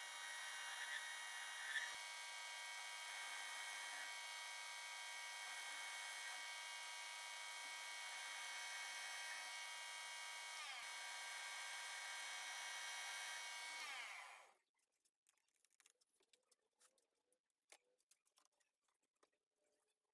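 Metal lathe running while turning a small carbon steel punch tip: a steady machine whine made of many fixed tones. The pitch shifts slightly twice near the end, and the whine cuts off suddenly about fourteen seconds in. Faint scattered clicks and taps follow.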